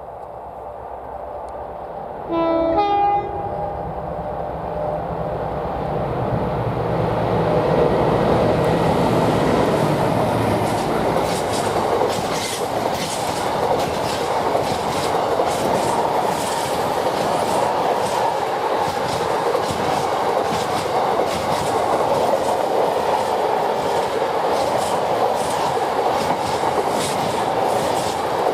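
A diesel train sounds its two-tone horn briefly, a low note then a higher one, about two seconds in, then passes with a steady loud rumble and the clatter of wheels over rail joints.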